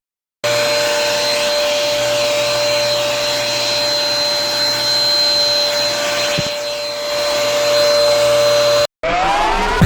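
Vacuum cleaner running steadily: a loud rushing hiss with a constant whine over it. It cuts off suddenly near the end.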